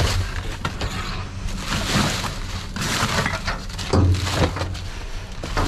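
Plastic bags, bubble wrap and paper packaging crinkling and rustling as trash is handled and pushed aside by hand, with a steady irregular crackle throughout.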